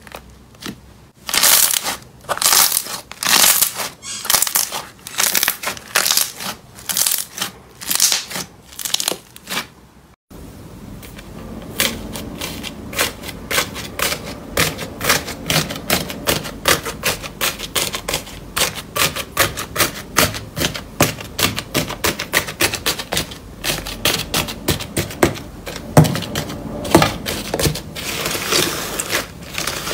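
Fingers pressing and poking thick slime mixed with foam beads, giving short crackling squishes about once or twice a second. About ten seconds in, after a cut, a crusted slime studded with foam balls is pressed and broken up by hand, giving a dense run of rapid crackling and clicking.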